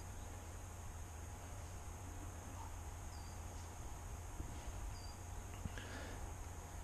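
Quiet outdoor ambience: a low steady rumble of wind on the microphone, with a few faint, short, high chirps from small birds spaced a second or two apart.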